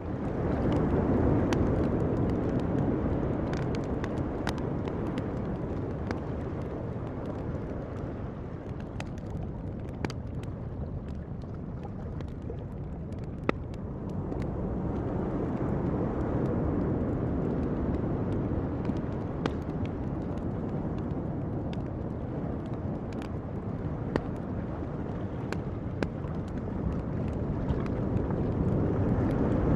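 Ocean surf washing in slow swells that build and fade, with a campfire crackling over it in scattered sharp pops; one pop about halfway through is louder than the rest.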